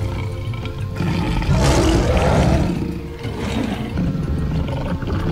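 Recorded lion roar played as a sound effect: one long rough roar starting about a second in and lasting about two seconds, trailing off into quieter grunts.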